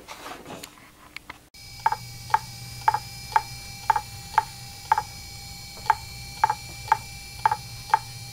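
Fujitsu MHK2048AT 2.5-inch laptop hard drive clicking over and over, about two clicks a second, over a steady faint whine. The clicking starts about a second and a half in. Repeated head clicking like this is the typical 'click of death' of a failing drive.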